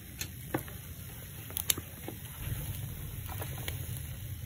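Charcoal grill with fish laid on its wire grate: scattered sharp crackles and clicks, about six in all, over a steady low rumble.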